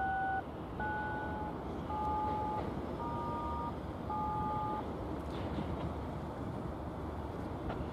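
Five touch-tone (DTMF) beeps keyed over a railroad radio scanner, about one a second, each a different pair of tones held for about half a second. A steady low rumble runs underneath.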